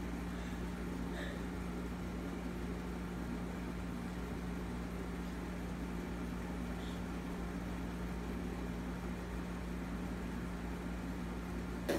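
Steady low mechanical hum over an even hiss, like an appliance or fan running, with a few faint short high blips near the start and about seven seconds in.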